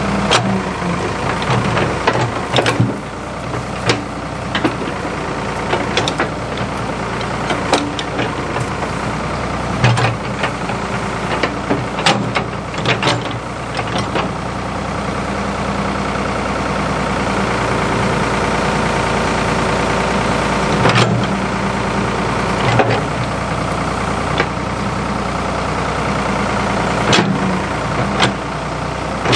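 Ford 555 backhoe's engine running steadily, with repeated sharp knocks and clanks scattered over it.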